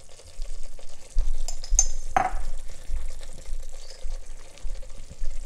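Tomato purée cooking in a pot with a faint, steady sizzle. Irregular dull low thumps run through it from about a second in, with a few light clicks and a short scrape about two seconds in.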